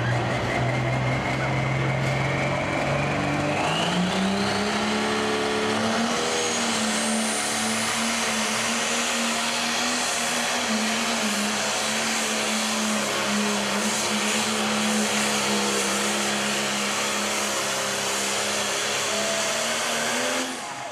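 Turbocharged diesel engine of a John Deere Pro Stock pulling tractor running flat out under load while dragging a weight-transfer sled. A few seconds in, the engine pitch climbs and a high turbo whistle rises with it, then both hold steady. Near the end the sound drops off sharply as the driver lifts off at the end of the pull.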